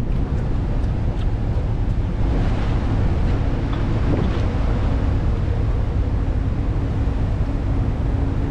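Steady rumble of a large car ferry under way, with wind on the microphone and the rush of the sea.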